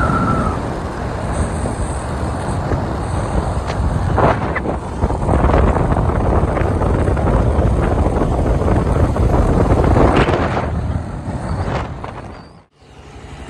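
Wind rushing over the microphone of a moving motorcycle, mixed with engine and road noise at riding speed, with a few surges. The sound drops out abruptly near the end.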